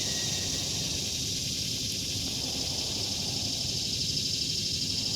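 Steady chorus of cicadas, a constant high buzz, over a low rumble of background noise.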